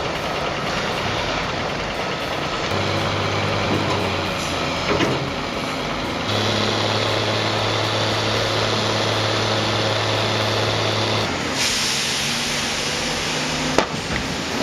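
Heavy diesel machinery running with a steady pitched hum that rises in level partway through, then a loud hiss for about two seconds and a sharp knock near the end.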